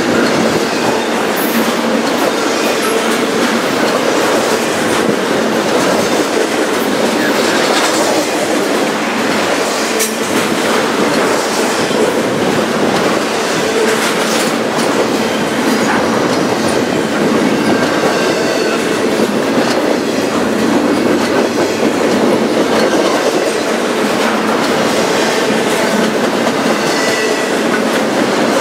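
Double-stack intermodal freight cars rolling past, a steady rumble of steel wheels on rail with frequent clicks over the rail joints.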